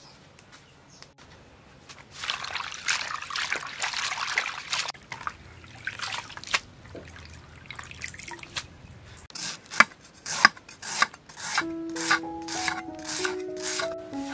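Herb leaves being swished and rinsed by hand in a plastic basin of water, with splashing, trickling and dripping. About two-thirds in come a run of sharp knocks as a cleaver chops lemongrass stalks on a wooden board, and background music enters near the end.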